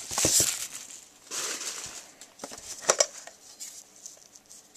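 Plastic wrapping crinkling and cardboard being handled as a box of trading cards is opened, in a few short rustling bursts with light clicks and taps.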